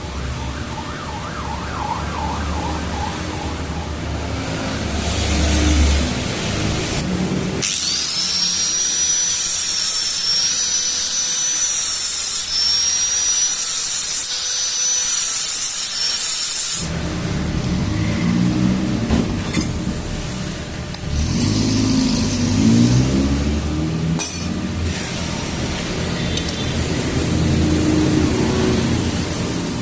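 Handheld power tool running, with rough running noise around it. From about 8 to 17 seconds in, a high whine dips and recovers over and over as the tool is pressed on and eased off.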